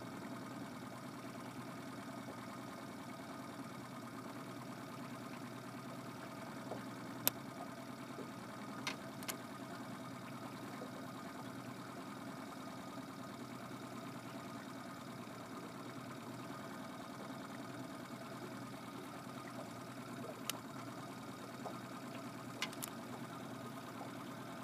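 A steady low hum like a small motor running, with a few short, sharp clicks now and then.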